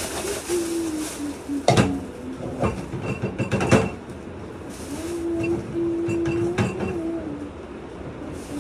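Dishes being washed at a kitchen sink: tap water running with metal pots and utensils clattering, loudest knocks about two and four seconds in. A low steady tone comes and goes over the running water.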